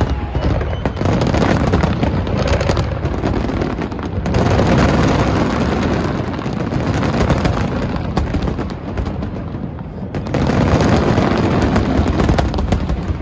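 Fireworks finale: a rapid, overlapping barrage of shell bursts, booms and crackling, swelling louder about four seconds in and again about ten seconds in.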